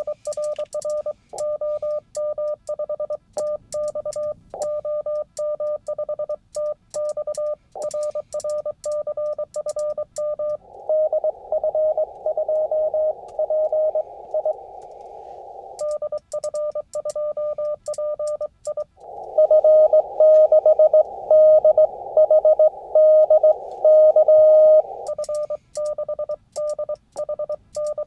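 Morse code contact on an amateur radio transceiver. The operator's own keyed sidetone, with light clicks from the key, alternates twice with the other station's Morse coming in through the receiver over a band of hiss. The second incoming reply is the louder one.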